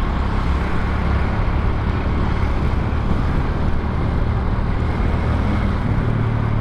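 Suzuki Smash 110 underbone motorcycle's single-cylinder four-stroke engine running steadily on the move, heard from the rider's position with the rush of wind and road noise over it.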